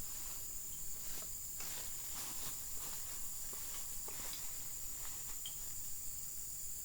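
Steady high-pitched drone of insects, with scattered soft clicks and rustles.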